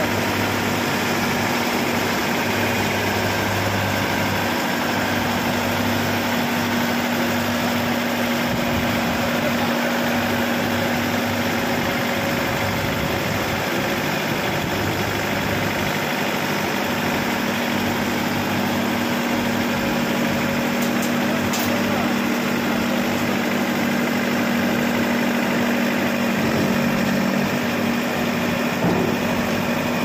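Changfa CF608 tracked combine harvester's engine running steadily while the machine drives up ramps onto a truck bed, swelling slightly near the end.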